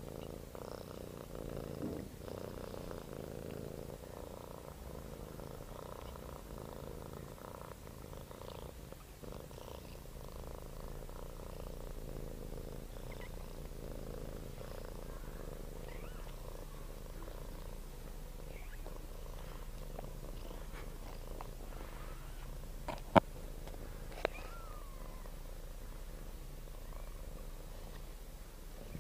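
Domestic cat purring steadily, close to the microphone. Two short sharp clicks sound near the end.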